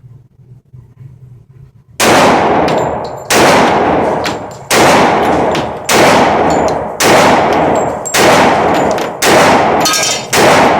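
Glock 21 .45 ACP pistol fired eight times in a slow, steady string, about one shot every second and a quarter, starting about two seconds in, each shot ringing out briefly.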